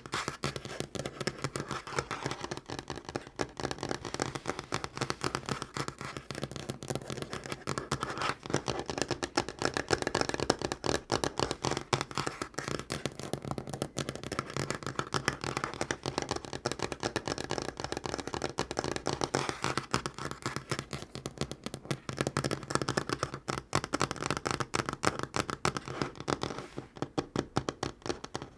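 Natural fingernails tapping fast on a tabletop: a dense, unbroken run of quick clicks.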